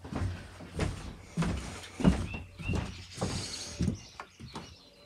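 Footsteps thudding on a hard floor, about one every half second or so, with two short high squeaks about two seconds in.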